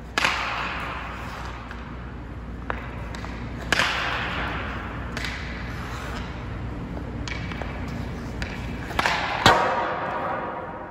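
Hockey pucks being shot with an STX Stallion HPR 2 composite stick: four sharp cracks, the last two about half a second apart, each echoing and fading slowly in the empty arena, with lighter clacks between them.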